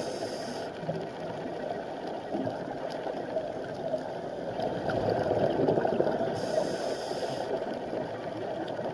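Muffled underwater rumble and gurgle of a scuba diver's exhaled bubbles, with a short regulator hiss at the start and again about six and a half seconds in.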